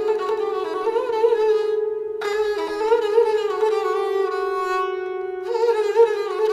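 Sarangi bowed in a slow, singing melodic line with wavering ornaments and slides between notes. The phrase breaks and starts again about two seconds in, and again about five and a half seconds in.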